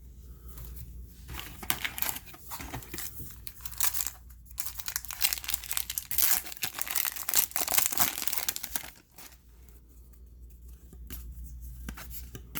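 A trading-card pack wrapper being torn open and crinkled, with dense crackling rustle from about a second and a half in until about nine seconds, then quieter rustling and small clicks of handling.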